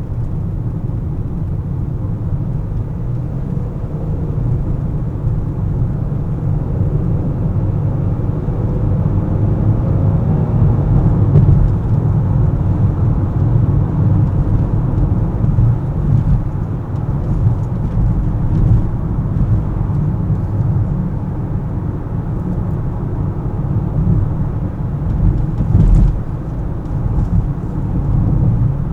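Car driving on city roads: a steady low rumble of tyre and engine noise, with a faint tone that rises and falls in pitch about ten seconds in and a short knock near the end.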